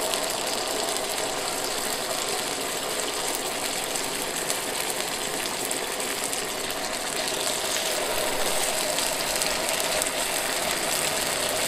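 Marinated chicken breasts sizzling in a hot nonstick frying pan, a steady frying hiss that grows a little louder near the end as a second breast goes into the pan.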